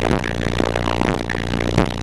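Six 18-inch subwoofers playing bass-heavy music at high volume, with sustained deep bass notes and a rattling buzz over them.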